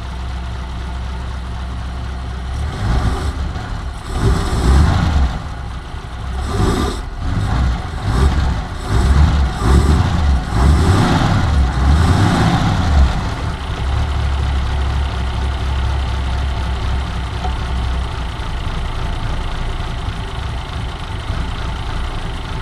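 1951 Mercury's flathead V8 on low idle after a cold start. It is revved up and down several times for about ten seconds, then settles back to a steady low idle.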